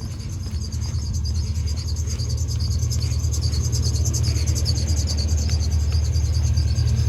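Small portable air compressor running steadily, a low hum with a rapid buzzing chatter, pumping air into a water-heater expansion tank as the pressure builds toward 60 psi.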